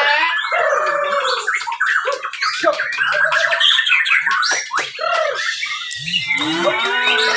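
Several white-rumped shamas (Bornean murai batu) singing at once in hanging contest cages. Their songs make a loud, dense, overlapping stream of varied whistled phrases, quick chattering notes and glides.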